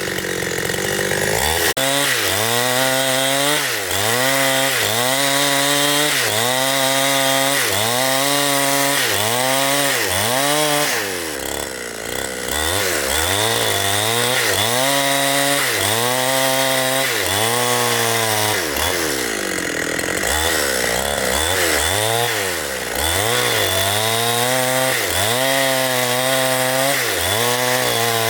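Chainsaw cutting into a big tree, its engine pitch rising and falling about once a second as the saw loads and unloads in the cut, easing off briefly twice.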